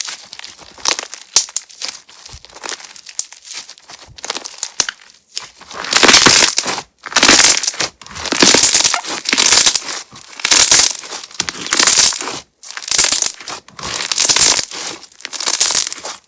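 Crunchy slime being pressed and squeezed by hand, crackling and popping. Light crackles come first; from about five seconds in there are loud crackling squeezes about once a second.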